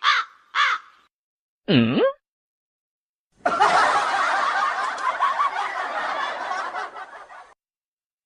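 Crow cawing twice, then a short sliding tone, then about four seconds of laughter that fades out.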